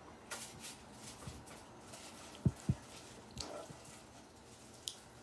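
Small plastic spoon and cup of a Kinder Joy being handled while the chocolate cream is scooped: scattered light clicks and taps, with two low knocks close together about two and a half seconds in.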